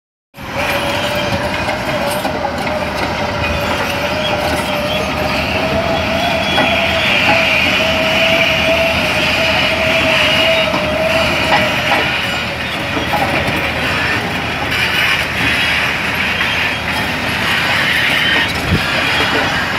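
Caterpillar D10N crawler dozer working: its diesel engine runs under load while the steel tracks clank and squeal. A steady whine holds for about the first twelve seconds.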